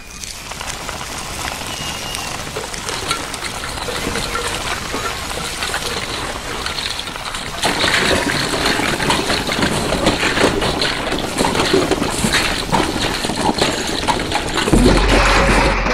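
Sound-designed film soundtrack of dense crackling and rustling, matching tumbling beach rubbish; it gets thicker and louder about halfway through, and a low steady hum joins near the end.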